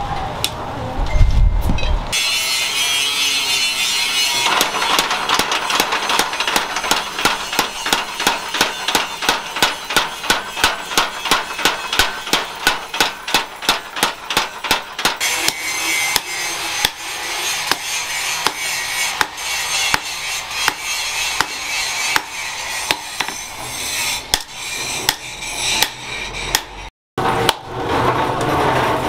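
Mechanical power hammer pounding a red-hot steel knife blade held in tongs, a long run of rapid, evenly spaced blows. Near the end come separate heavier hand-hammer blows on the blade on the anvil.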